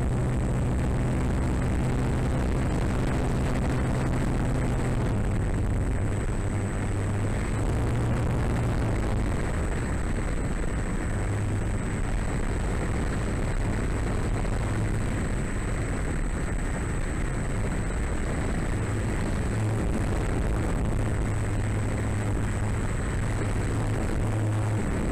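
Scale RC Drifter ultralight model's motor and propeller running steadily in flight, heard from the tail with a rush of wind over the camera. The hum drops slightly in pitch about five seconds in as the throttle eases, and a thin steady high whine sits above it.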